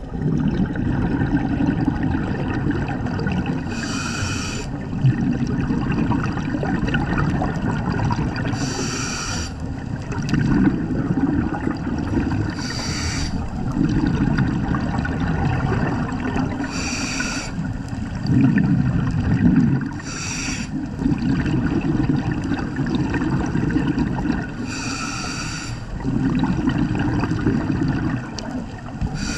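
Scuba regulator breathing underwater: a short hissing inhale about every four seconds, seven times, with long bubbling exhales rumbling in between.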